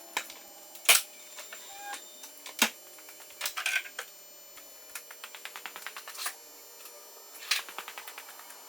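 Hand ratchet clicking in short quick runs while bolts are worked loose, with a few sharper metallic knocks between the runs.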